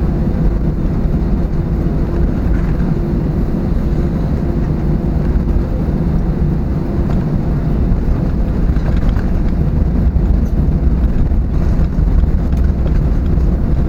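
Cabin noise inside an Airbus A320neo on the ground just after landing: a steady, loud low rumble of the engines and the aircraft rolling, with a faint steady hum above it.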